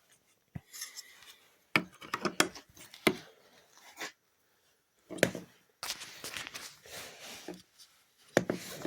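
Plastic clicks, taps and rubbing as the turn signal lamp is handled and worked at its clips in a car's side-mirror housing, with a brief silent gap about halfway through.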